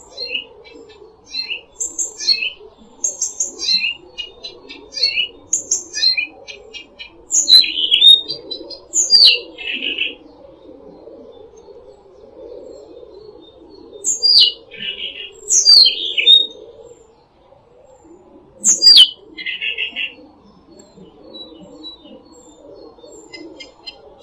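Songbirds singing: quick high chirps, with several loud whistled notes that sweep down in pitch, some followed by a short buzzy trill.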